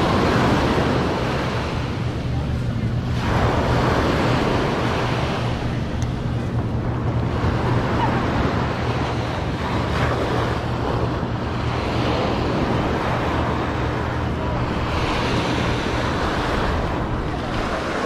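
Ocean surf washing onto the beach, swelling and ebbing every few seconds, with wind buffeting the microphone. A steady low hum runs underneath and stops shortly before the end.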